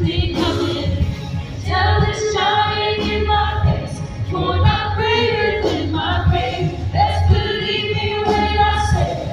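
Live worship music: several singers singing together in parts over a band with a steady bass underneath.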